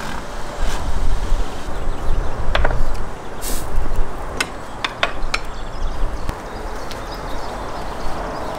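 Handling clatter: a few sharp clicks and knocks over a low steady rumble as a wooden serving board holding a boiled sheep's head is lifted off a pot and carried.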